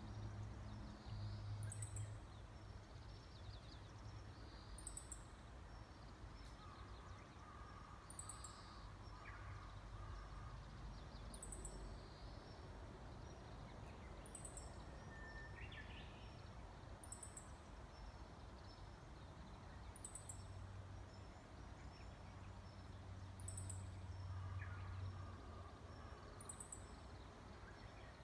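Japanese bush warbler (uguisu) singing its hoo-hokekyo song, faintly: a long steady whistled note that breaks into a quick rising phrase, twice, about a third of the way in and near the end. A short high chirp repeats about every two seconds throughout, over a low hum.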